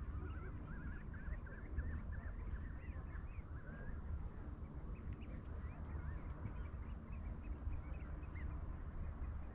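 Waterfowl at a pond calling: a quick run of short calls in the first few seconds, then scattered calls, over a steady low rumble.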